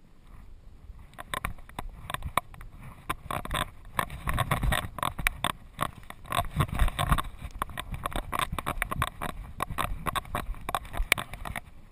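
Dense, irregular clatter of clicks and knocks from a GoPro strapped to a Doberman's back, jostling in its mount as the dog moves over bare rock. It starts about a second in and is heaviest in the middle, with some low thumps.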